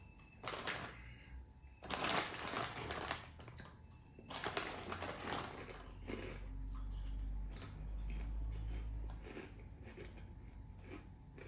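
Eating Lay's Magic Masala potato chips: the chip bag crinkles and the crisps crunch in three short noisy bursts over the first six seconds. A low rumble follows for about three seconds.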